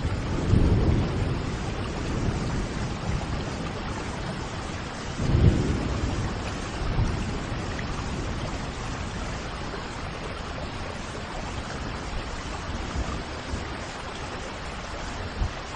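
Steady rushing water, an even hiss. Deep rumbles swell about half a second in and again a little after five seconds, then die away toward the end.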